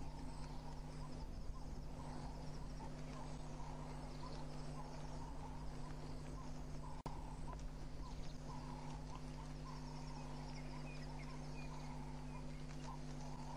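Outdoor bush ambience: many small animal calls repeating over a steady low electrical hum. The sound cuts out for an instant about halfway through.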